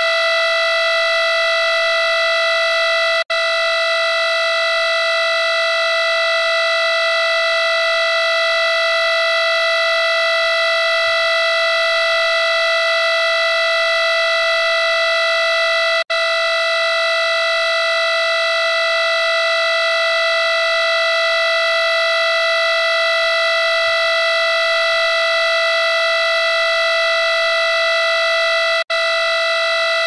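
Loud, steady electronic buzzing tone, a harsh drone on one unchanging pitch with many overtones, the noise of a bad transmission connection. It cuts out for an instant three times: about three seconds in, about halfway, and near the end.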